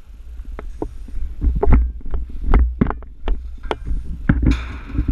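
A run of about ten sharp, irregularly spaced knocks and clicks over a steady low rumble.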